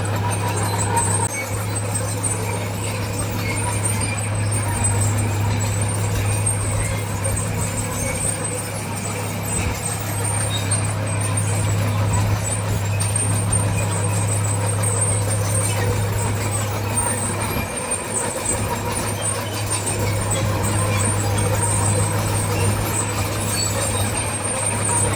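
Heavy diesel engine of earthmoving machinery running steadily: a constant low drone with a faint high whine above it.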